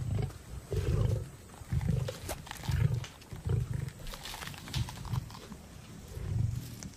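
African lions growling over a kill in short, low rumbles, roughly one a second, with a few sharp crunching clicks of feeding between them.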